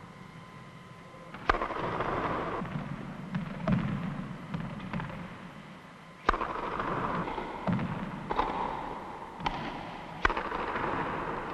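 Tennis racket strings striking the ball on serves, sharp cracks at irregular intervals, each trailed by a short hiss of echo.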